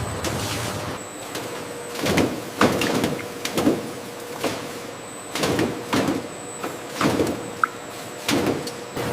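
Factory machinery running with a steady hum, and irregular knocks and clattering every second or so.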